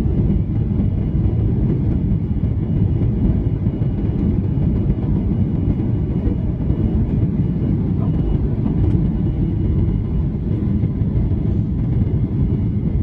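Steady low rumble of engine and air noise inside the cabin of a Boeing 737-800 airliner, with a faint steady whine above it.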